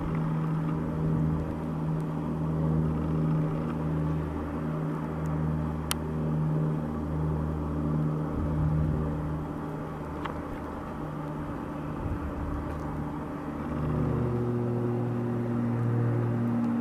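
A vehicle engine running steadily with a low droning hum; about 14 seconds in, its pitch shifts to a new steady level.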